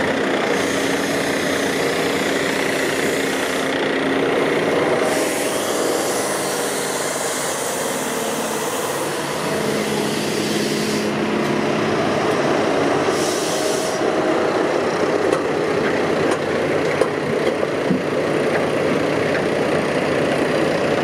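Engine running steadily under a broad rushing noise, with a high hiss that swells up and fades several times.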